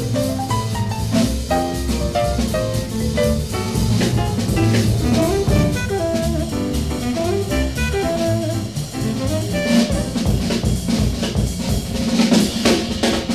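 Mid-1950s small-group jazz recording: the drum kit is prominent with cymbal strokes and bass drum, over a steady upright bass and a moving melodic line.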